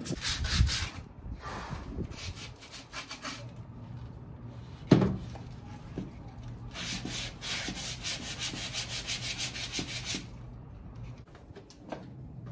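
Hand sanding of a painted cabinet door with a sanding sponge: bursts of quick back-and-forth scratchy strokes, several a second. A single sharp knock about five seconds in.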